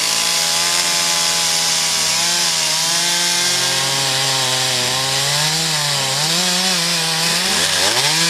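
Two-stroke chainsaw running at high revs while cutting wood. Its engine pitch dips and recovers as the chain loads up, with one deep dip and climb back near the end.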